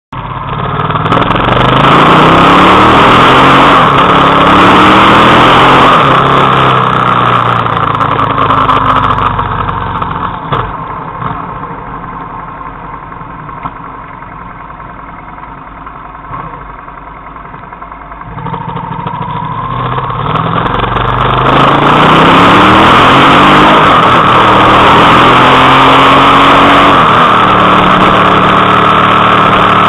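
Suzuki SV650S's V-twin engine accelerating through the gears, its pitch climbing in steps with each shift, over heavy wind rush. About ten seconds in it drops to a quieter idle for several seconds, then pulls away again through the gears and settles into a steady cruise.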